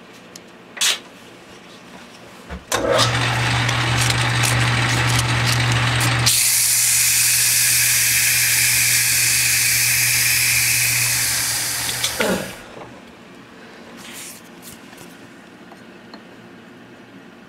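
Metal lathe motor starting and running with a steady hum, while a strip of emery cloth is held against the spinning metal bar: a loud, even abrasive hiss for about six seconds as the bar is polished down to final size. About twelve seconds in the lathe is switched off and its hum falls away.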